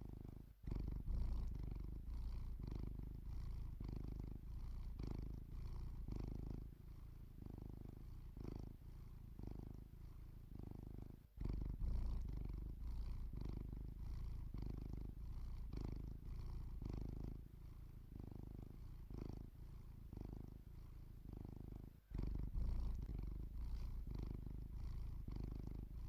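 Domestic cat purring close up: a low rumble that swells and fades in an even rhythm with each breath, about one pulse a second. It breaks off for a moment three times.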